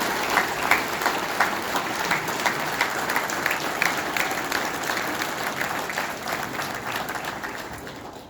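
Audience applauding after a speech, a steady round of clapping that slowly fades out near the end.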